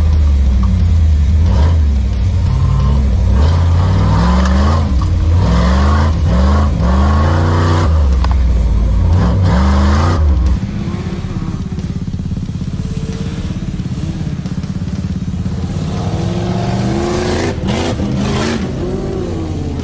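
Engine of a stripped-down Jeep Grand Cherokee race Jeep heard from inside its open cab while driving a dirt track, loud and revving up and down. About ten seconds in it drops to a quieter, steadier run. Near the end more engine revving comes in with a few sharp knocks.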